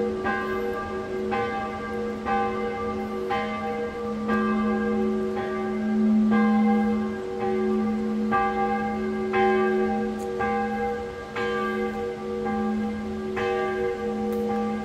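Church bells ringing, with strokes coming about once a second over a steady, lingering hum.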